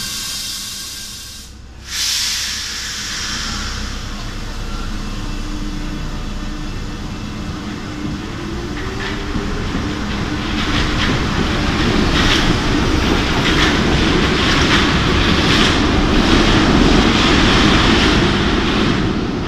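Paris Métro MF 77 train pulling out of the platform. Its motor whine rises in pitch as it speeds up, then the wheels clack over rail joints, growing louder as the cars run past.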